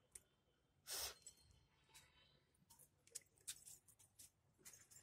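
Near silence: faint scattered clicks and rustles, with one brief, louder rustle about a second in.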